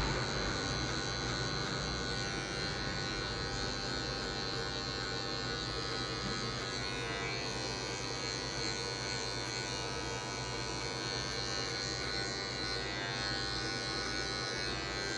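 Electric hair clipper with a half guard running with a steady buzz as it is worked through short hair in a fade.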